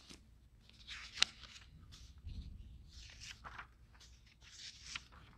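Pages of a large paper book being turned and handled: several soft rustles and swishes, with one sharp click about a second in.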